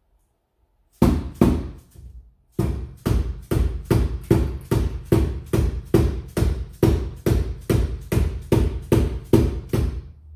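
Rubber mallet tapping a Hummer H1 windshield pane to seat it down into its urethane bead in the frame track. Three taps come about a second in, then after a short pause steady taps about three a second until near the end.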